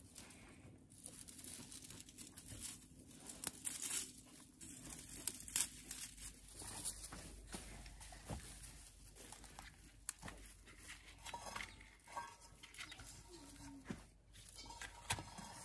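Dry straw and twigs rustling, crackling and snapping as they are handled and broken, with irregular small clicks throughout.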